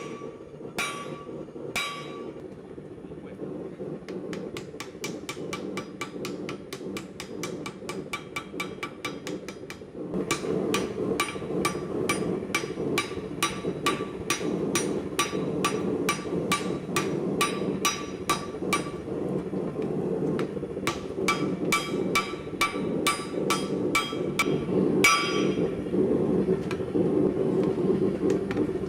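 Hand hammer striking hot axe steel on an anvil in quick, even runs of about three blows a second, drawing out the folded axe with the flat of the hammer. There is a short pause near two-thirds of the way through and one heavier ringing blow shortly after. A steady low rushing noise runs underneath.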